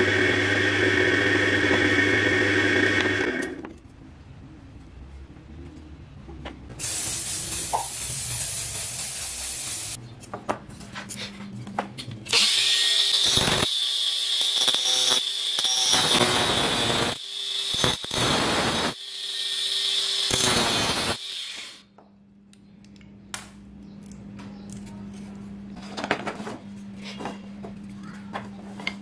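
Bench drill press running with a 4 mm bit boring into a wooden strip, stopping about three seconds in. Later an angle grinder runs in several bursts with a high whine, cutting through steel screws, then a few light knocks of wooden sticks handled on a tabletop.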